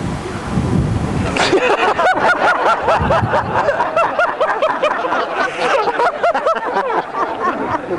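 Wind rumbling on the microphone, then about a second and a half in a crowd of spectators breaks into applause, with many voices calling out over it.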